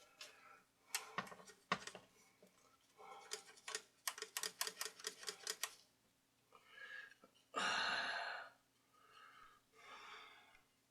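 Small metal clicks and taps from parts of a record player's changer mechanism being handled and worked on, including a quick run of about five clicks a second. A louder short scraping or rubbing burst comes near the end.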